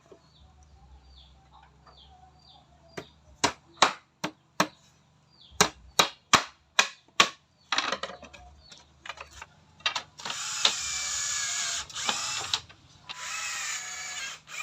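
About a dozen sharp knocks in quick succession, then a power drill running in two bursts, the first about two and a half seconds long and the second shorter, near the end.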